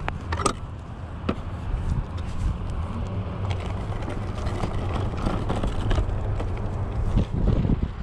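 Okai ES400A electric scooter riding over a packed-dirt track: a steady low rumble from the tyres on the dirt, with the stem and frame rattling in sharp clicks over bumps and heavier knocks near the end.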